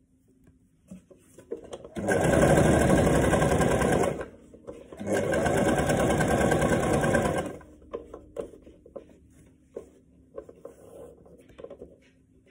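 Electric sewing machine stitching through fabric in two runs of about two seconds each, with a short pause between. Afterwards only light clicks and rustles as the fabric is handled.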